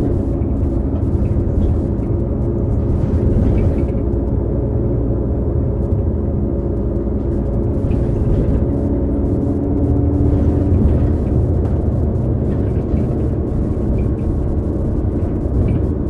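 2018 New Flyer XD40 diesel transit bus under way, with its Cummins L9 engine and Allison B3400xFE transmission giving a steady low rumble. Over it runs a whine from the transmission bearings, a fault several buses of this series share; the whine is clearest about nine to eleven seconds in.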